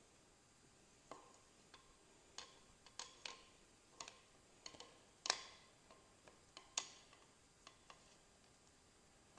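Faint, irregular clicks and taps of hands working the starter rope while knotting it at the recoil starter's T-handle, about a dozen in all, the loudest a little past the middle.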